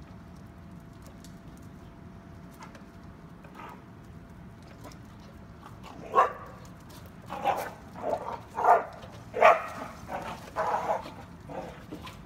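A dog barking in a string of short barks, beginning about halfway through and repeating roughly every half second to second.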